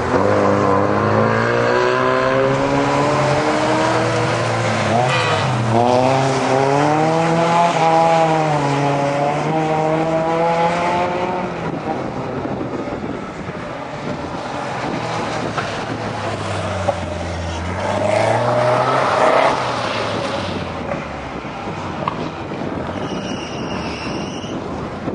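Lada (VAZ) race cars' four-cylinder engines revving hard on a gravel track, the engine note climbing and dropping again and again through the first half. It then drops back, and another engine swells and passes about two-thirds of the way through.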